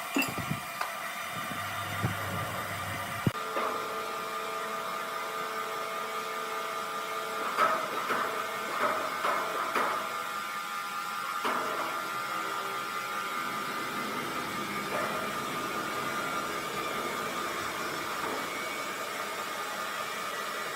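Sawmill machinery running with a steady whine. The sound changes abruptly about three seconds in, and a few knocks and clatters come about halfway through.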